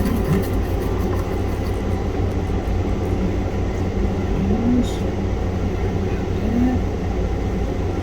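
Steady low mechanical rumble, like a fan or air-conditioning unit running, with a faint click about five seconds in.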